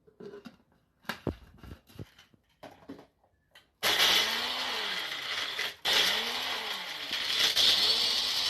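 A few knocks and clicks, then an electric kitchen grinder starts up, grinding Maria biscuits into crumbs. Its motor hum wobbles up and down about every two seconds, cuts out for a moment about two seconds after starting, and runs on.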